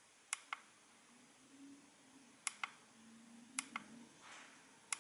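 Small plastic menu buttons on the AOMWAY Commander FPV goggles clicking, pressed and released four times, each a quick double click, about a second or more apart.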